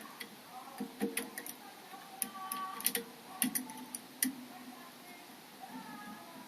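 Irregular small metallic clicks and taps of lock-picking tools working inside a seven-lever Chubb 3G117 mortice lock, with a faint brief ringing now and then.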